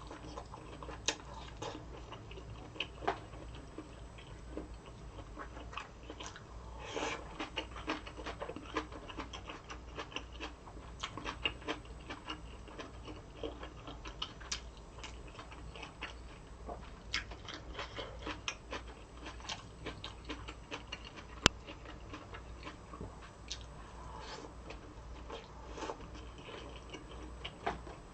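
Close-miked eating: chewing and crunching with many small, irregular crisp clicks and crackles, from crisp kimchi and fish-cake udon being eaten. One sharp, louder click comes about two thirds of the way through.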